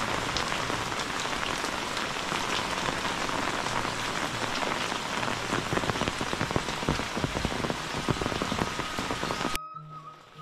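Steady rain falling on clay roof tiles and a muddy village yard, with many sharp, close drop hits. The rain sound cuts off abruptly about a second before the end, leaving a faint steady tone.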